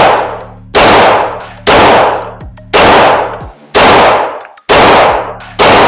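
Glock 19 9mm pistol firing a steady string of seven shots, about one a second, each shot followed by a long decaying echo.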